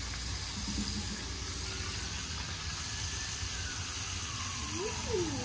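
Steady hiss and low rumble of an outdoor propane burner heating a pot of frying grease, with battered morel mushrooms frying in it.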